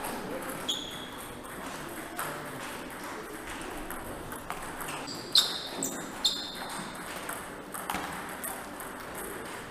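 Table tennis balls clicking off tables and bats, with a few sharp ringing pings, the loudest a little past halfway, over a murmur of voices in the hall.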